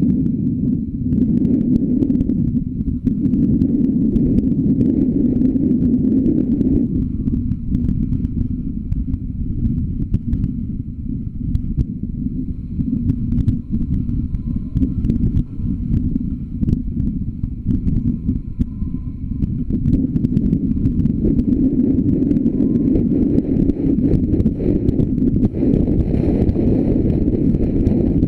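Muffled low rumble of a car driving, picked up by an action camera enclosed in its housing on the bonnet. The rumble eases off for a while in the middle, then grows louder with more hiss near the end as the car picks up speed on the open road.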